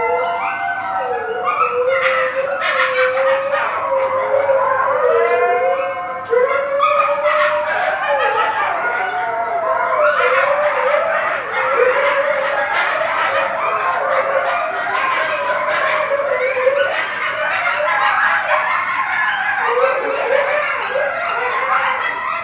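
Red wolves howling: several long howls that rise and fall and overlap one another. The chorus grows denser and more tangled from about ten seconds in.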